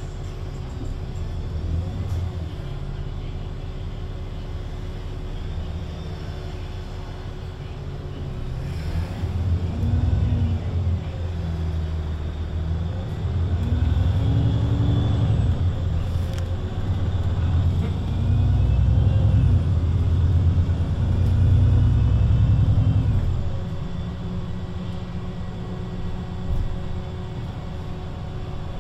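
VDL Citea LLE 120 city bus's diesel engine running steadily, then revving up and down in several rising and falling swells as the bus pulls away and works through the gears of its Voith automatic gearbox. It is loudest around twenty seconds in, then settles back to a steady low running.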